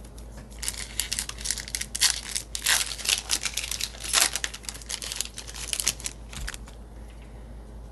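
Foil trading-card booster pack wrapper crinkling as it is handled and torn open: a dense run of sharp crackles lasting about six seconds, then dying down.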